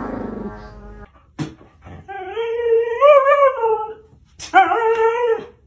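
A dog giving two long, drawn-out whining cries that waver a little in pitch, the first about two seconds long and the second about one second.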